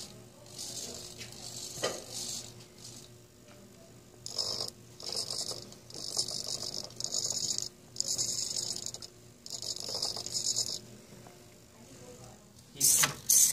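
Hobby servo motors in a 3D-printed robot hand whirring in short, high-pitched spurts, starting and stopping several times as the fingers are driven to curl and straighten, with a louder burst near the end.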